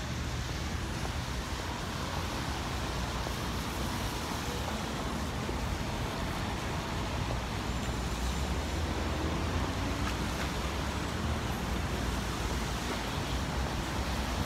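Steady city street traffic noise: cars passing on a wet road, with a constant low rumble underneath.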